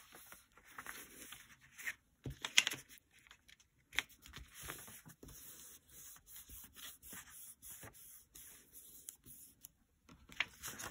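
Hands smoothing and pressing sheets of printer paper flat on a cutting mat: paper rustling and rubbing, with a few sharp clicks about two and a half and four seconds in.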